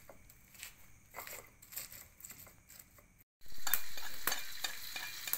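Spice paste being worked in a stone mortar with a pestle: quiet, scattered scraping and knocks. After a brief dropout past the middle, the paste goes into hot oil in a wok and sizzles loudly, the sizzle slowly easing.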